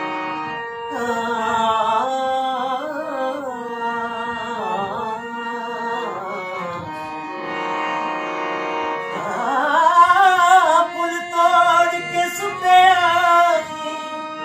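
Harmonium playing steady held notes, with a singing voice in long, wavering wordless phrases over it about a second in and again from about nine seconds. A dholak drum is played by hand underneath.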